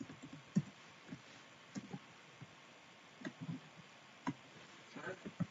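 Faint, irregular clicks of a computer keyboard and mouse: keyboard shortcuts being pressed and the mouse clicked, about fifteen light taps scattered through, the loudest about half a second in.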